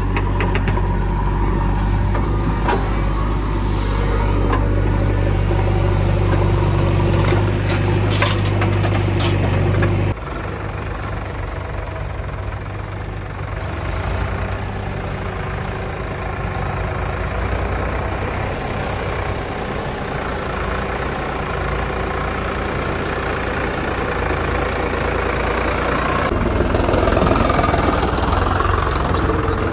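Heavy diesel machinery engine running steadily, with a sudden drop in level about ten seconds in and a few sharp metallic knocks.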